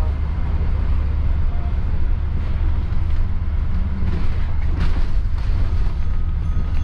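Bus running along the road, heard from inside: a steady low rumble of engine and road noise.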